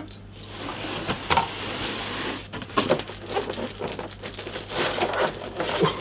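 Plastic packaging crinkling and rustling as a keyboard is handled and lifted out of its box, with a few small knocks.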